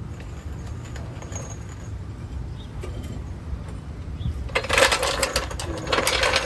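Metal tools or suspension parts being picked up and handled, clinking and rattling for a second or two about two-thirds of the way in, over a steady low rumble.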